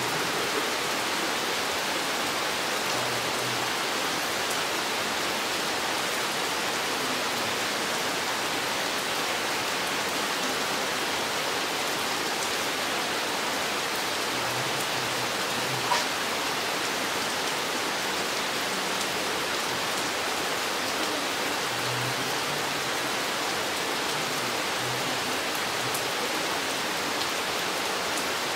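Steady rain falling in a forest, an even, dense hiss of drops, with one sharp, louder tap about halfway through.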